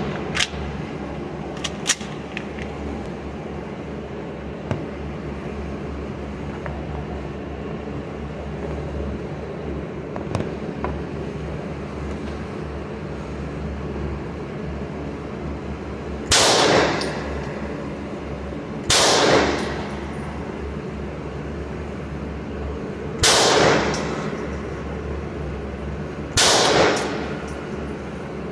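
Four .380 pistol shots from a Hi-Point semi-automatic, two to four seconds apart in the second half, each with a short echo off the range booth. A couple of light metallic clicks from handling the pistol come near the start, over a steady low hum.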